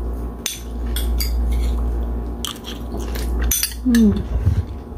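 Metal cutlery clinking and scraping against a small ceramic bowl as salad is scooped and eaten: a series of scattered light clicks over a steady low hum.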